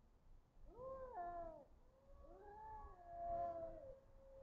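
Cat yowling: two drawn-out moaning yowls that rise and fall in pitch, the second longer and running into a lower held note. This is the threat caterwaul of cats squaring off with each other.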